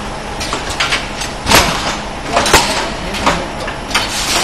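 Roll-film bag packaging machine running, with sharp clacks and short hisses about once a second over a steady background noise.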